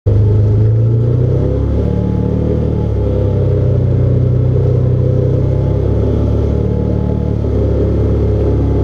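Side-by-side UTV engine running as it drives a dirt trail, starting abruptly and holding a steady drone whose pitch shifts up and down a few times with the throttle.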